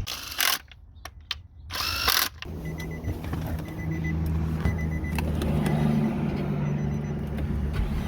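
Infiniti G37's 3.7-litre V6 starting and settling into a steady idle about two and a half seconds in, after a couple of short noisy bursts, now that the loose injector harness connector has been plugged back in and the injectors get their signal.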